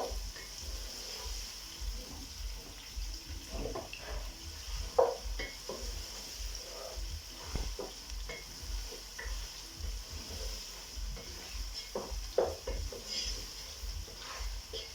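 Beef and freshly added onions frying in a pot with a steady sizzle, while a spoon stirs them and knocks against the pot now and then, hardest about five and twelve seconds in.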